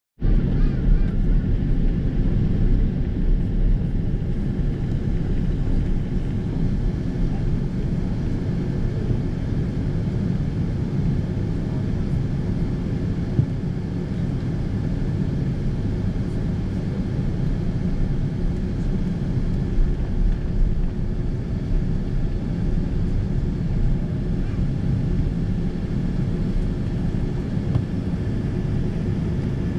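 Steady low rumble of cabin noise inside a Boeing 777-200 taxiing on the ground, its jet engines running at low taxi power.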